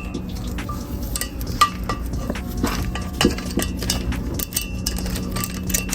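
Irregular light metallic clinks and taps of valve-train parts being handled as valves are taken out of a Honda B20 cylinder head with a valve spring compressor.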